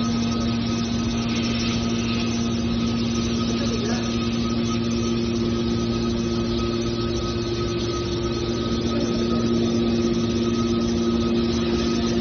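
Hydraulic scrap-metal baler's power unit running steadily: an even machine hum with a constant whine.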